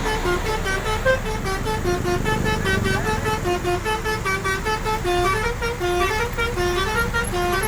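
Bus telolet horn of the Basuri type playing a quick melody of short stepped notes, with a low rumble underneath. The tune breaks off at the very end.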